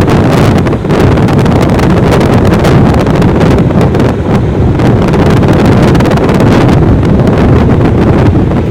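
Hampton Bay Glendale ceiling fan running at high speed on an upgraded capacitor, its blades' airflow buffeting the microphone in a loud, steady rush of wind.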